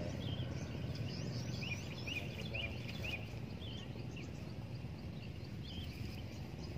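Small birds chirping in short, quick high calls, thickest in the first three seconds and sparser after, over a steady low background rumble.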